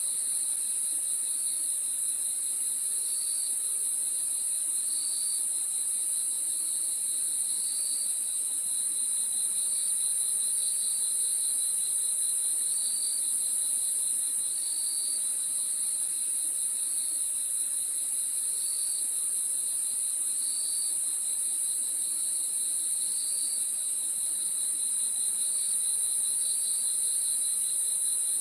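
Crickets chirping at night: a steady, high-pitched chorus, with a lower voice giving short chirps about every second or two.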